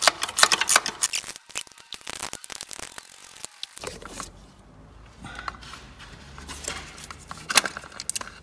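Metal clicks and scrapes of a long bar working the auxiliary belt tensioner on a MINI Cooper S engine, levering it over to release the belt tension. The clicks come thickest in the first couple of seconds and again near the end.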